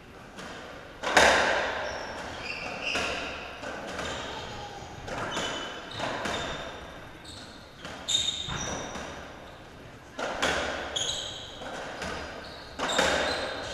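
Racketball rally on a squash court: sharp, echoing smacks of racket on ball and ball on the walls every second or two, the loudest about a second in. Short high squeaks of court shoes on the floor come between the hits.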